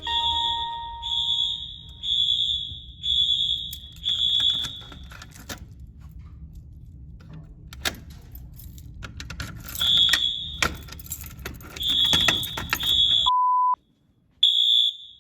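Wheelock MT fire alarm horn sounding in short pulses about once a second, set off during an audible walk test of the fire alarm system. It stops for about five seconds of clicks and handling noise, then pulses again, with one short lower beep near the end.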